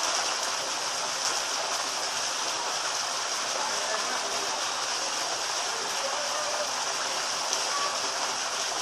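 Steady rushing water, an even hiss at constant level, with faint voices underneath.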